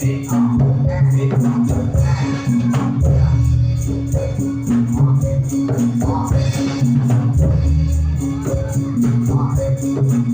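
Javanese jathilan music played loud through a sound system: heavy bass notes under a repeating melodic figure, with a steady drum beat and rattling percussion.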